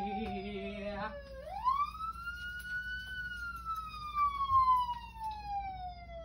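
Wail siren, its pitch sliding slowly down, sweeping up about a second and a half in, then gliding slowly down again.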